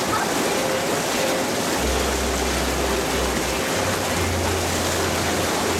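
Hot tub jets churning the water in a steady, bubbling rush. A low hum comes in about two seconds in and holds under it.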